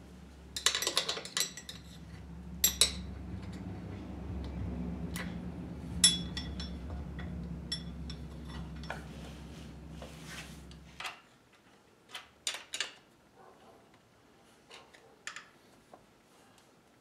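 Scattered metal clinks and knocks as a leather flat belt with metal lacing is handled and fitted over a metal lathe's headstock pulley. Under them runs a steady low hum that cuts off suddenly about eleven seconds in.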